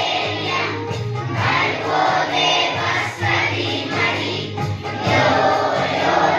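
Schoolchildren singing an assembly prayer together as a choir, over steady held low notes of accompaniment.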